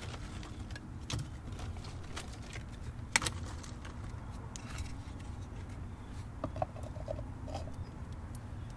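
Wood fire crackling in an adobe stove over a low steady rumble, with scattered light clicks and one sharper click about three seconds in.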